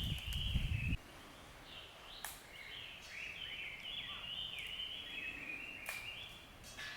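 A wild bird singing outdoors, a run of short, descending chirping phrases repeated again and again. A low rumble fills the first second and cuts off abruptly, and there are two sharp clicks.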